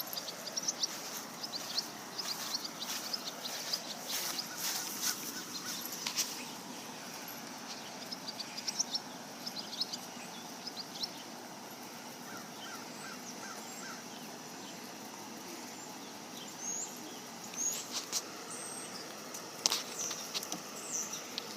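Small birds chirping repeatedly, with short high chirps thick in the first half and a brief run of evenly spaced lower notes near the middle, over steady outdoor background noise. A few sharp clicks stand out.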